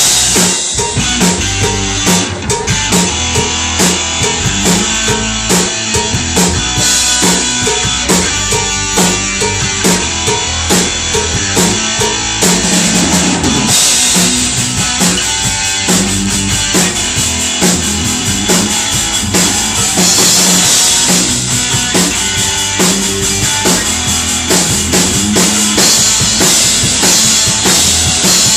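Live rock band playing at full volume: electric guitar, electric bass and a drum kit keeping a steady beat, with the cymbals growing brighter about twenty seconds in.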